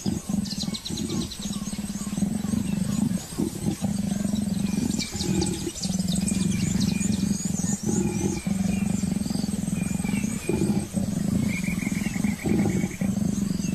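Leopards growling low and almost without a break, with short gaps between bouts, during mating. Birds chirp in the background.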